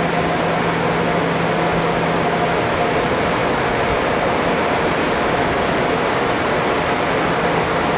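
Steady machinery drone: an even rushing noise with a fixed low hum that fades about two and a half seconds in and returns near the end.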